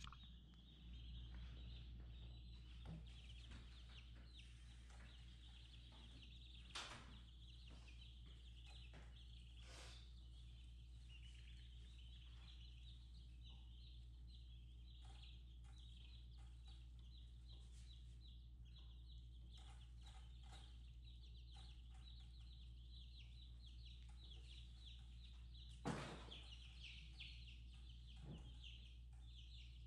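A brood of baby chicks peeping steadily and faintly, over a low steady hum. A few knocks sound through it, the loudest near the end.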